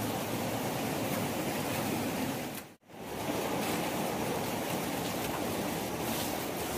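Steady rushing water of a river running close by, an even wash of noise that cuts out for an instant just before the middle and comes back unchanged.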